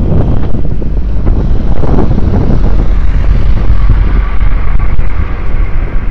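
Wind buffeting an outdoor camera microphone, a loud steady rumble, with a fainter higher hum rising in the background from about three seconds in and fading before the end.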